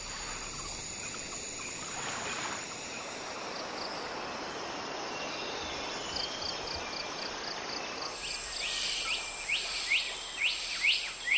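Tropical rainforest ambience: a steady hiss of insects with high, sustained insect tones. From about three-quarters of the way through, a bird calls in a run of short notes that sweep downward, about two a second, growing louder near the end.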